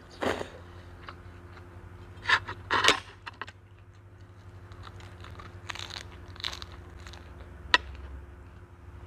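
Close-miked eating of a rice vermicelli salad: a slurp of noodles right at the start, then loud wet crunching bites about two and three seconds in and quieter chewing after. A single sharp click comes near the end.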